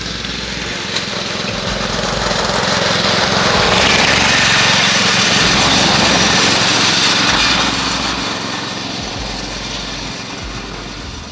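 Riding lawn mower engine running flat out on a top-speed run, with its stock carburetor. It grows louder over the first four seconds, holds there, then eases off from about eight seconds in.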